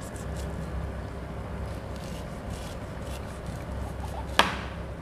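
Chef's knife slicing kernels off a cooked corn cob in faint scraping strokes, over a steady low hum. About four seconds in there is one sharp knock, the loudest sound, as the blade comes down onto the plastic tray.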